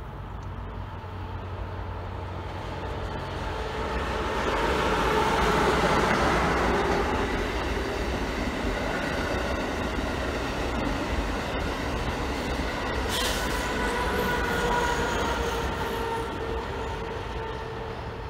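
Amtrak Acela Express high-speed electric trainset passing: the rush of wheels and air builds to a peak, holds while the cars go by and fades as it recedes, with a steady whine underneath.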